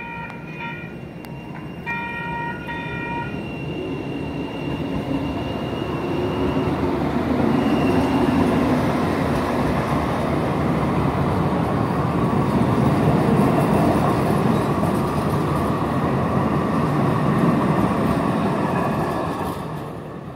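Electronic railroad crossing bell (General Signals Type 1) ringing its last strokes, stopping about three seconds in. Then two Sacramento light rail trains of Siemens U2A and CAF cars pass through the crossing: their rumble and rattle builds from about six seconds in, stays loud, and fades near the end.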